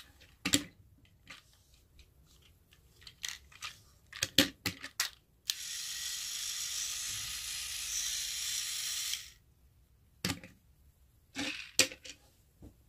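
A Plarail Henry toy locomotive's small battery motor and gears running steadily for about four seconds from around the middle, then stopping abruptly. Sharp plastic clicks and knocks from the toy being handled come before and after.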